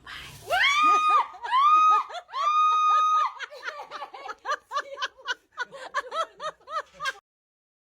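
High-pitched laughter: three drawn-out squeals, then a quick run of short bursts at about four a second that cuts off suddenly about seven seconds in.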